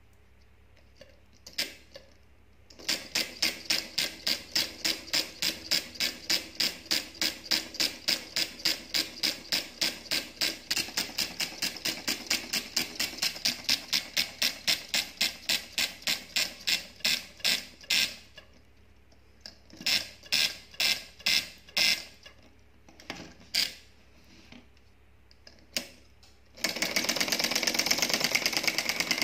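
Homemade solenoid engine, a coil-driven syringe plunger turning an aluminium flywheel, clicking with each stroke at about three a second. The clicking stops, a few single clicks follow, and near the end it runs much faster as a steady rapid rattle.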